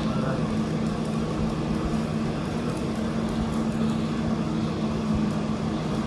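Steady machinery hum: a constant low drone under a broad hiss, even in level throughout.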